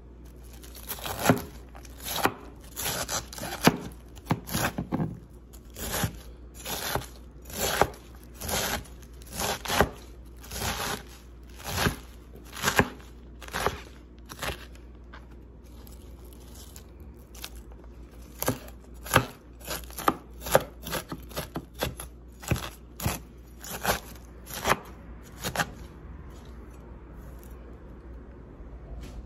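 Large knife chopping shredded cabbage on a cutting board: a run of sharp chops about one or two a second, a pause of a few seconds about halfway through, then another run of chops.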